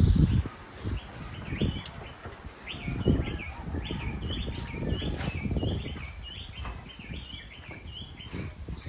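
A bird calling in a long series of short, quick rising-and-falling chirps, repeated about twice a second, over low irregular bumps of wind or handling on the microphone, the strongest right at the start.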